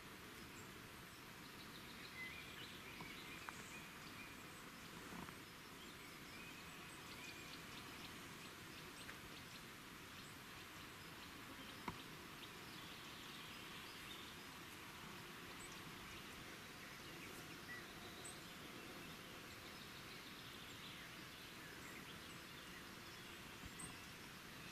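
Faint outdoor ambience: a steady low hiss with scattered faint bird chirps and a few light ticks, and one sharp click about halfway through.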